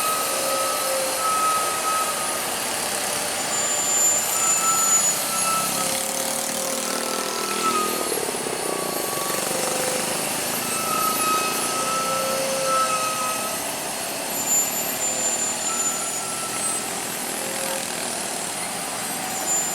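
Heavy truck running on a steep mountain road: a steady rush of engine and road noise, with short high squeals at several pitches that come and go.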